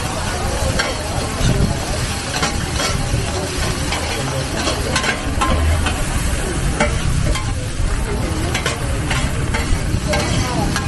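Egg frying in oil in a large wok, with a steady sizzle. Two metal spatulas scrape and clink against the pan again and again as the cook stirs.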